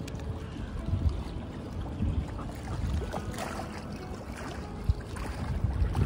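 Gusty wind buffeting the microphone, with uneven low rumbles, over the splashing of choppy lake water.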